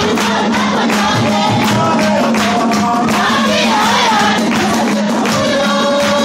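Choir singing together over a steady percussive beat.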